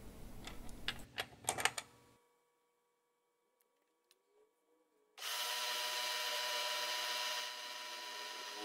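Faint rubbing and a few sharp metal clicks as a steel square collet block is slid and seated against a mill stop in the vise. After about three seconds of silence, a milling machine's spindle starts running steadily with an end mill fitted, a hiss-like whir with a few steady tones that eases slightly in level near the end.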